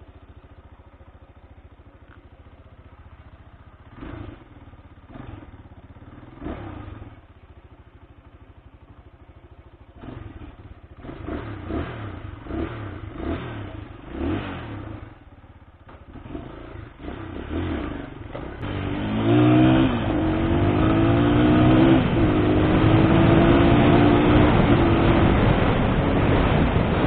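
Honda XR200's single-cylinder four-stroke engine idling, blipped with the throttle several times, then pulling away about two-thirds of the way through, louder and rising in pitch as it accelerates. It is being test-run after a carburettor repair.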